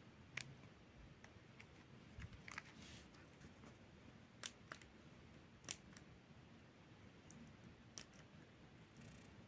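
Faint, irregular clicks of a Nokia 2760 phone's keypad buttons being pressed, about ten in all, against near silence.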